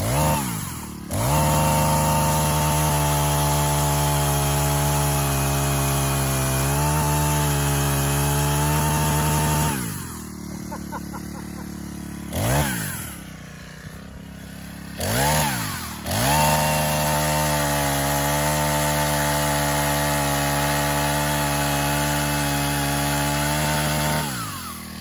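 Small four-cycle chainsaw engine revved up and held at a steady high speed for about eight seconds, then dropping back to a quieter idle with a couple of quick revs, and held at high speed again for about eight seconds before falling back to idle near the end.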